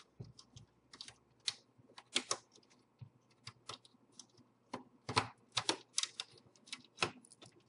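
A small screwdriver prying at the plastic clips of an Xbox 360 Slim casing: irregular light clicks and taps of metal on plastic, busiest about five seconds in.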